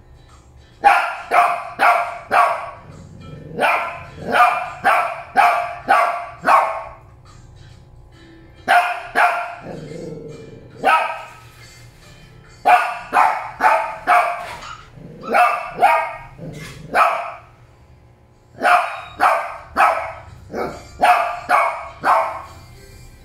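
Shih Tzu barking in bursts of three to seven sharp barks, with short pauses between bursts.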